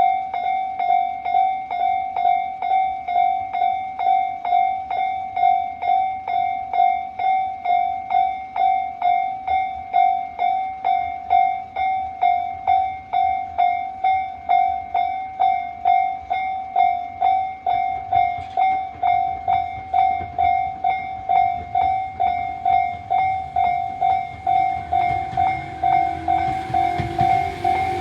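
Japanese level-crossing warning bell of the Tobu Tojo type, an electronic bell ringing steadily at about two strokes a second. A train's rumble builds under it over the last few seconds as the train nears the crossing.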